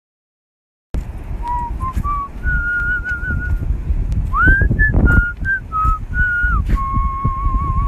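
Silent for the first second, then a person whistling a slow melody: several held notes with a slight waver, one quick upward slide in the middle and a long held note near the end, over low wind rumble on the microphone.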